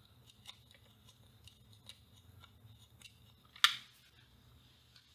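Light metallic clicks and taps of a screwdriver and small parts against a tape recorder's sheet-metal chassis as a new speaker is fastened in, with one sharper, louder click about three and a half seconds in.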